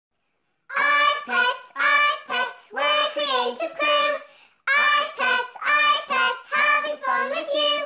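A high voice singing a theme song in short, separate notes, starting about a second in, in two phrases with a brief break about halfway.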